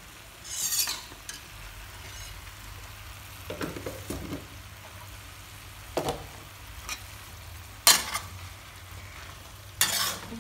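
Metal spatula scraping and knocking against a steel wok as greens and pork are stir-fried, over a faint steady sizzle. The scrapes come every couple of seconds, about five strokes, the sharpest near the end.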